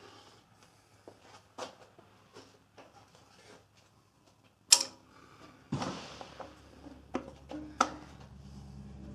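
Metal parts and tools clicking and knocking as a bandsaw's cast table is fitted and adjusted, with one sharp clank about halfway through. Just after it a steady low hum starts and keeps going.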